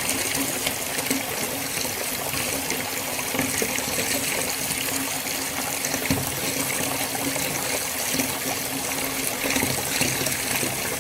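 Water pouring in a steady, continuous stream.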